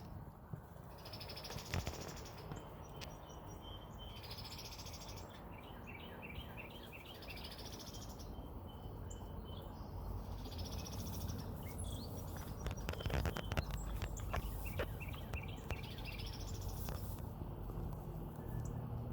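Birds calling outdoors: short chirps, and a buzzy high-pitched call that repeats about every three to four seconds. A few sharp clicks come in the second half.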